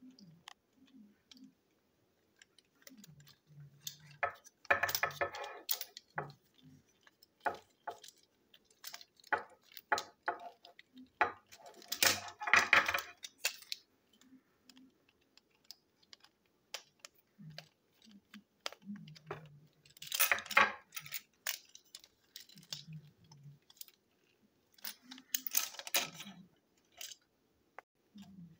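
Small plastic and metal toy-train parts being handled: a toy fuel tanker wagon's wheel axle and plastic chassis clicking and knocking, with several short bursts of rattling.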